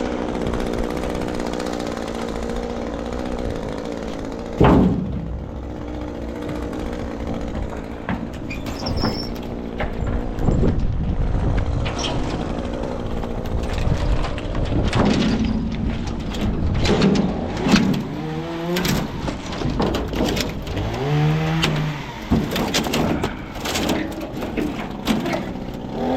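Gas chainsaw engine idling, with a loud thump about five seconds in, then knocks and rattles as the saw is revved in short bursts that rise and fall in pitch over the second half.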